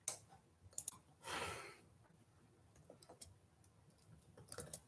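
A few faint, scattered clicks of laptop keys, with one soft breath out about a second and a half in.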